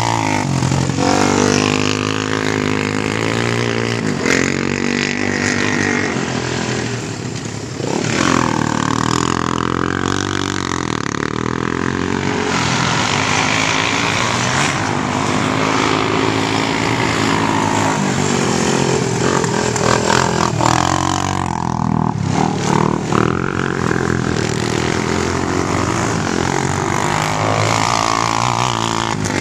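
Sport quad engines, Honda 400EX and 300EX four-stroke singles, racing round a dirt track. The nearest one revs up and eases off again and again, rising and falling in pitch as it passes close, while others run farther off.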